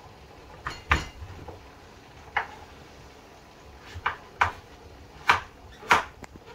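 Kitchen knife chopping butternut squash into cubes on a wooden cutting board: about eight separate, irregularly spaced knocks of the blade striking the board.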